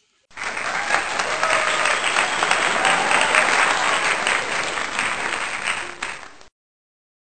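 Crowd applause, many hands clapping densely, added as a sound effect: it starts abruptly just after the beginning and cuts off abruptly near the end.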